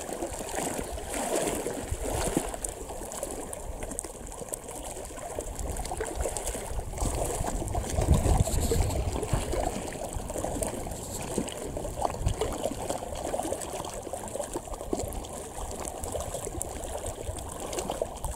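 Wind on the microphone over small waves lapping against a rocky lakeshore, with a stronger low gust about eight seconds in.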